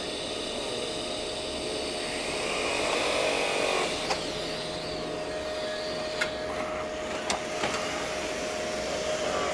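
TIG welder running on a steel seat-base repair: a steady hum with hiss, broken by a few sharp ticks in the second half.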